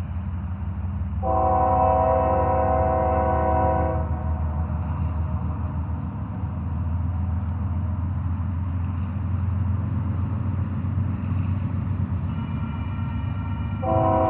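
Approaching train locomotive sounding its multi-tone chord horn: one blast of about three seconds starting about a second in, and another beginning near the end, over the steady low rumble of the train.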